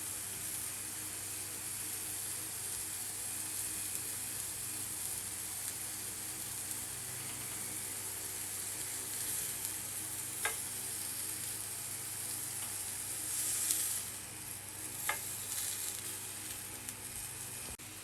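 Chicken shish kebab skewers frying in an oiled pan over a medium flame: a steady sizzle, with a sharp click about ten seconds in and another about fifteen seconds in.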